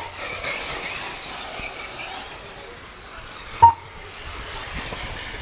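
Electric motors of 1/8-scale RC buggies whining as they race, the pitch wavering up and down. A short, sharp electronic beep sounds about three and a half seconds in.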